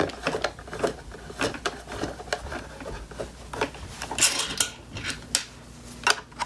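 Hands handling a soldering station and its cords while fitting a metal part to its plastic base, giving a string of irregular light clicks, knocks and rustles. The sharpest knocks come about four seconds in and again near the end.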